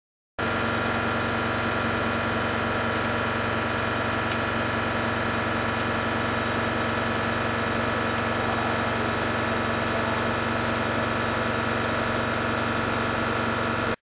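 A TRAUB TNX65 turn-mill center cuts a metal shaft: a steady machining noise, a constant whine over a wash of noise. It starts and stops abruptly.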